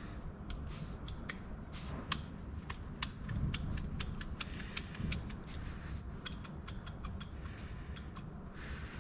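Seized clutch thrust bearing and its carrier from a 1958 Massey Ferguson 65 being turned over and handled by hand, giving many irregular small metallic clicks and scrapes.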